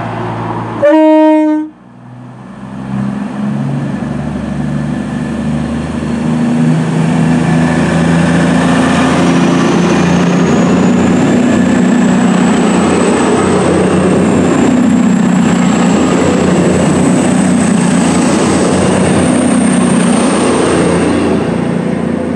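CrossCountry Class 221 Super Voyager diesel-electric train gives one short horn blast, then its underfloor Cummins diesel engines and traction motors build up as it pulls along the platform, with a whine that rises in pitch as it gathers speed and then holds steady.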